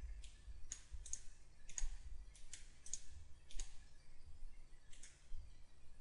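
A computer mouse being clicked: about a dozen faint, sharp clicks at irregular intervals, some coming in quick pairs.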